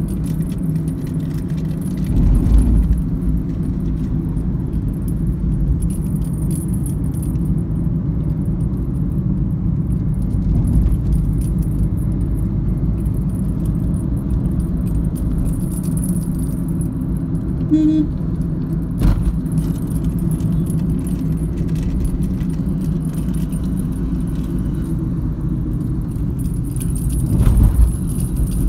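Road and engine noise heard inside a moving car: a steady low rumble with small clicks and rattles, and a few heavier bumps, the loudest about two seconds in and near the end.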